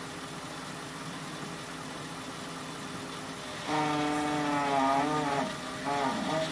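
Audi S5 idling steadily, then about three and a half seconds in a loud pitched squeal starts as the steering is turned, holding its note, dipping in pitch and breaking off briefly near the end before coming back. The squeal is a fault the car makes when steering.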